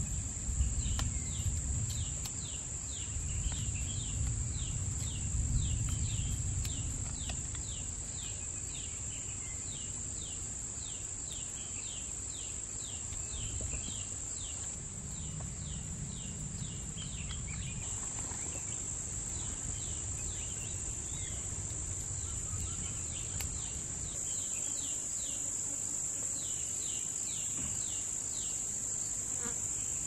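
Rainforest insects calling: a steady, high-pitched insect drone, with a second insect repeating a short falling chirp about two to three times a second. A low rumble comes and goes underneath.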